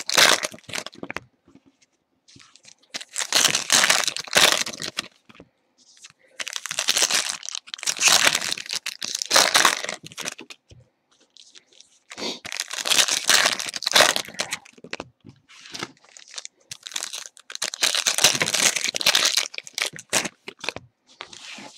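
Foil wrappers of Bowman Chrome football card packs being torn open and crinkled by hand, in repeated bursts of a couple of seconds with short pauses between.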